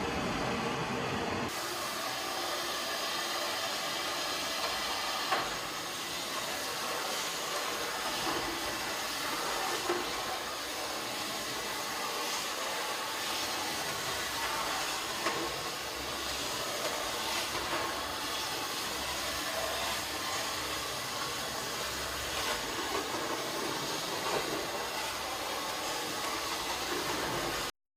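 High-pressure water jets in a plastic-crate washing machine, spraying with a steady hiss, with a few light knocks. The spray starts about a second and a half in and cuts off suddenly near the end.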